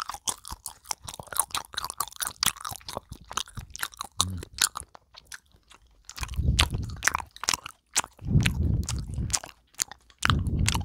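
Close-up chewing of a chocolate-coated jelly candy into a small handheld microphone: a dense run of crisp, crackly clicks throughout. Three longer stretches of low, muffled mouth noise come in the second half.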